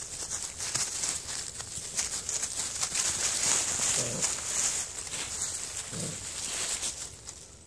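Dry fallen leaves rustling and crackling as puppies scramble and tussle in the leaf litter, with two short low puppy grunts about four and six seconds in. The rustling fades near the end.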